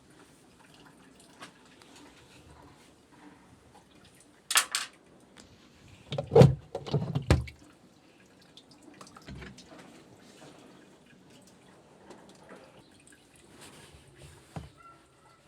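Water dripping and splashing in short, scattered bursts, with the loudest splashes a little after halfway, amid otherwise quiet.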